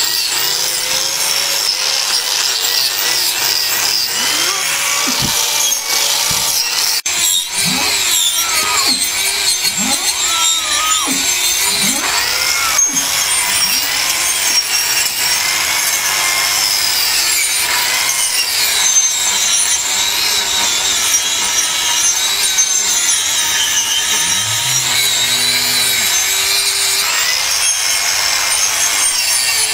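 Electric angle grinder with a trimming disc grinding down an overgrown, malformed cow hoof. The horn rasps against the disc without a break, and the motor's pitch dips and climbs again over and over as the disc bites in and eases off.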